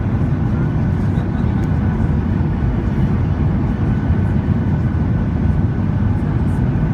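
Steady roar of a jet airliner's engines and rushing air heard inside the passenger cabin on approach to landing, heaviest in the low range, with a faint steady whine above it.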